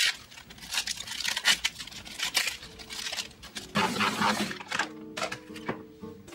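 Crisp iceberg lettuce leaves being torn by hand and dropped into a plastic salad spinner basket, a run of crunchy tearing and crinkling noises. The spinner's plastic lid is then handled, and soft background music comes in about halfway through.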